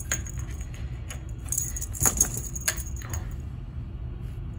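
A cat wand toy's ribbon streamers and plush body rustling and scraping against the door as it is pulled back and forth through the gap, with a cluster of crinkly clicks about two seconds in.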